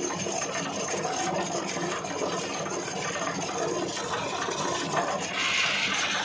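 Compost grinding machine running steadily with a rattling hiss as it grinds fermented goat manure. The grinding gets louder and brighter about five seconds in, as a fresh bucketful goes in.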